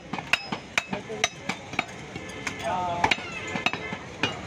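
Irregular sharp knocks and metallic clinks, several a second, of cleavers striking meat on wooden chopping blocks, with a voice briefly about three seconds in.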